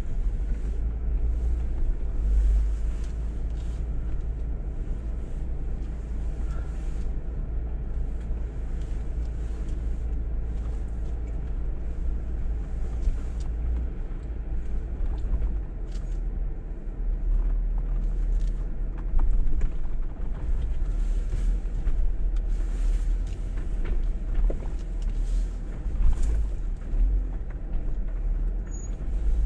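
Jeep engine running with a steady low rumble, with scattered small knocks and clicks.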